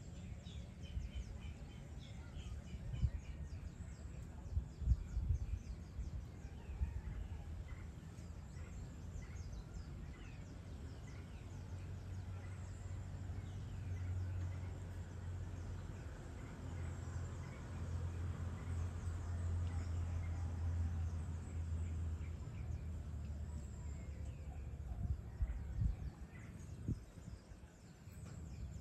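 Outdoor evening ambience: faint scattered bird chirps over a steady low rumble, with a few louder low thumps in the first few seconds.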